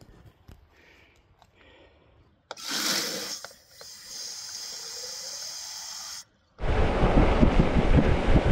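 Faint ticking, then a sudden rushing hiss that settles into a steady hiss and cuts off, then loud wind buffeting the microphone of a bicycle rolling fast downhill.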